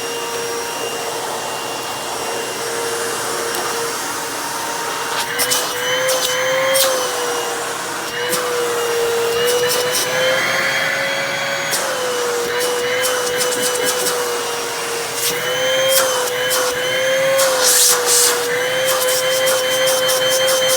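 Hoover Elite Rewind upright vacuum running with a steady, slightly wavering motor whine. From about five seconds in, irregular clicks and crackles sound over it. The owner judges that the motor doesn't sound healthy and may need replacing.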